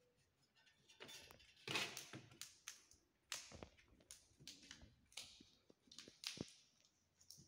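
A kitten's claws scratching and scrabbling on woven plastic sacks as it climbs, with irregular taps, scrapes and crinkly rustles starting about a second in.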